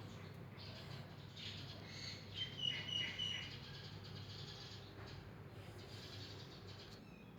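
A bird chirping, a quick run of short high chirps about two and a half seconds in, over a faint steady low hum.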